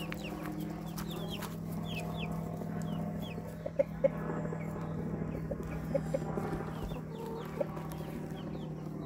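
Hens clucking and murmuring low, over the repeated high, falling cheeps of a chick: plaintive peeping, the call of a chick cut off from the flock behind a fence. Two sharp clicks about four seconds in.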